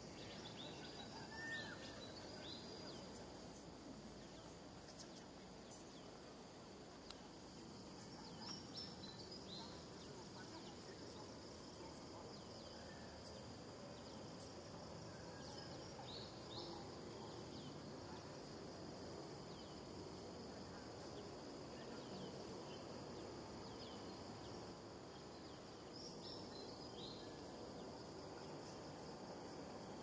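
Faint outdoor ambience: a steady high insect drone, with short high chirps in little clusters a few times and one falling call about a second and a half in.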